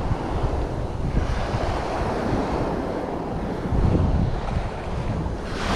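Sea waves washing on a rocky shore, with wind buffeting the microphone; the rush of water swells louder near the end.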